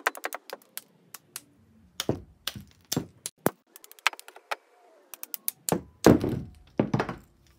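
Copper windings being prised out of a fridge compressor motor's stator with pliers: irregular sharp clicks and cracks as the wire and white insulating slot pieces snap loose and drop onto the metal bench, then two louder, heavier knocks about six and seven seconds in.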